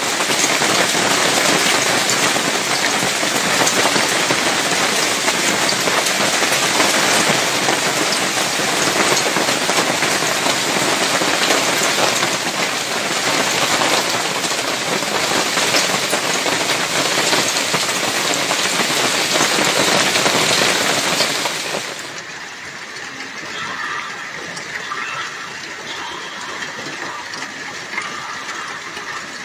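Heavy hail falling in a dense, steady rush, which drops to a quieter fall about two-thirds of the way through.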